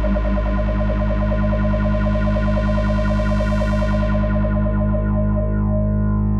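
Moog Grandmother synthesizer holding a sustained note through an Earthquaker Devices Pyramids flanger pedal, the flanger sweep rippling through the tone. The bright top end swells through the first half and then fades away, leaving a duller drone near the end.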